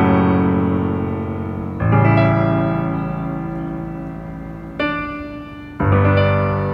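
Background music: slow piano chords, four struck over the span and each left to ring and fade.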